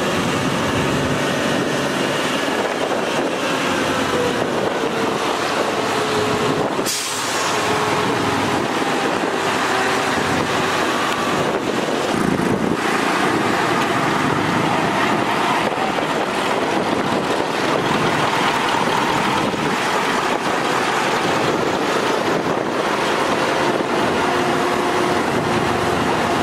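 Heavy truck's diesel engine running steadily. About seven seconds in there is one brief, sharp hiss.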